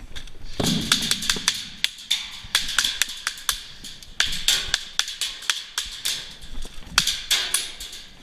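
Airsoft guns firing: runs of sharp cracks and snaps in several irregular clusters, some louder and closer than others.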